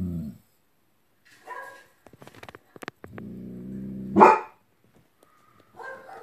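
German Shepherd growling low and long, breaking into one loud bark about four seconds in. Shorter, higher barks sound once before and once near the end.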